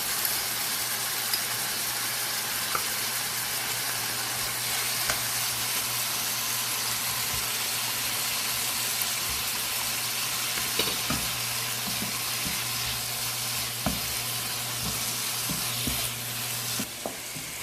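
Chicken sizzling as it is stir-fried in a pan, just after a soy sauce and honey mixture has gone in. A steady frying hiss runs throughout, with scattered clicks and scrapes of the utensil stirring it, and the sizzle eases a little near the end.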